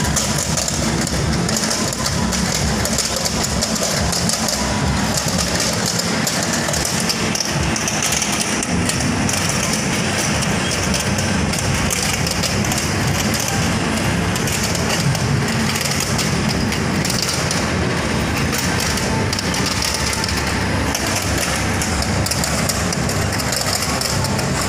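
Frog-fishing arcade game running, its turntable of plastic frogs turning with a steady, dense mechanical clatter.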